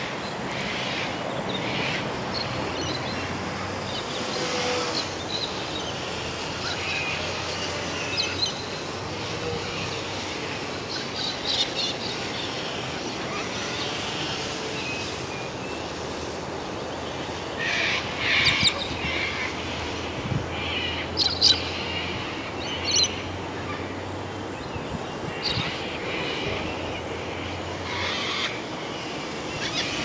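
Birds calling and chirping in scattered bursts, busiest a little past halfway, over a steady rush of wind on the microphone.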